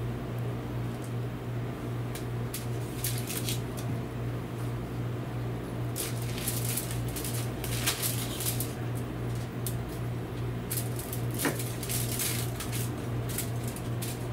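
Gloved hands tie butcher's twine around a chuck roast on a rotisserie spit, giving intermittent rustling and crinkling of paper and foil over a steady low hum.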